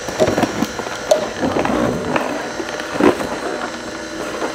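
Vertical slow juicer running, its auger crushing pears and apples with a steady motor hum under irregular cracks and knocks.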